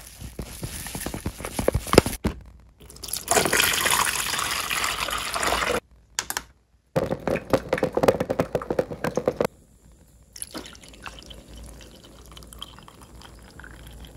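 Drip-coffee making in short clips broken by brief silent gaps: ground coffee scooped into the paper filter with crackly scraping, then liquid sounds as the electric drip coffee maker brews into its glass carafe, and near the end coffee pouring into a mug.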